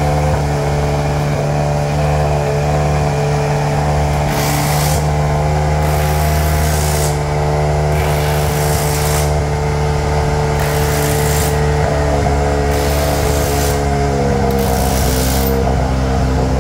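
An engine running steadily, its note shifting slightly near the end, with a hiss that comes and goes every second or two.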